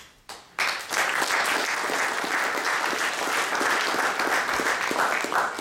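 Audience applauding: a couple of single claps, then full, steady applause from about half a second in.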